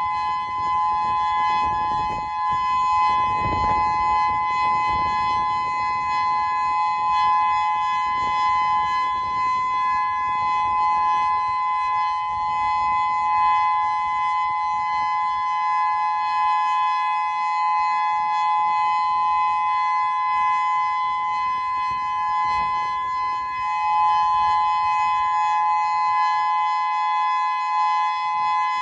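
Federal Signal Modulator II 6024B electronic outdoor warning siren sounding its alert signal: a loud, steady tone made of two close pitches sounding together, held without rising or falling.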